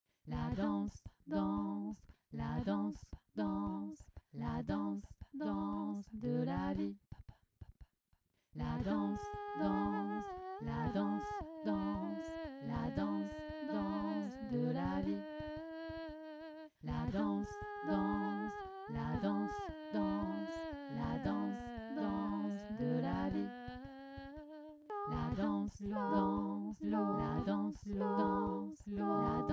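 Wordless a cappella vocal music: humming and singing in short, rhythmic notes, joined about a third of the way in by several layered, held vocal lines. It drops back to the short rhythmic notes near the end.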